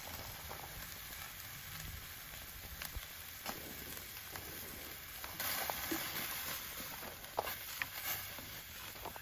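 Tri-tip searing fat-cap side down over hot charcoal, the final sear of a reverse sear: a steady sizzle with scattered crackles and pops. The sizzle grows louder for a moment about five and a half seconds in.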